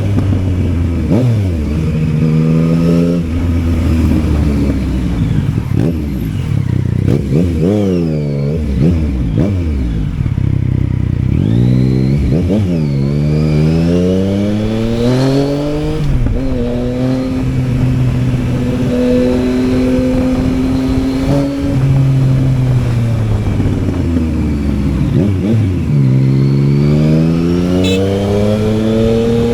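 Yamaha Tracer 900's inline three-cylinder engine under way, revving up hard and dropping back several times as it accelerates and shifts gears, then holding a steady note at cruising speed in the middle before it climbs through the revs again near the end.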